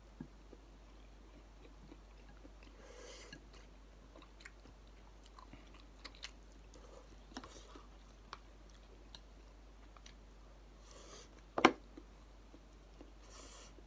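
A person eating Shin Ramyun noodles with wooden chopsticks: soft chewing and a few brief slurps, with small clicks of the chopsticks. A single sharp knock late on is the loudest sound, as the chopsticks are set down.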